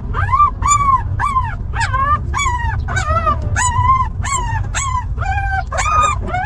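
Newborn puppies crying: a rapid run of high-pitched whimpering cries, each rising then falling, about two a second, over a steady low rumble.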